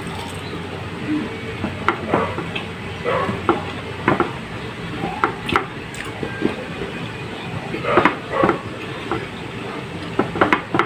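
Eating fried pork chop and rice by hand: chewing and lip smacks, with fingers pressing rice and tearing meat on a plate, as scattered short smacks and clicks over a steady background noise.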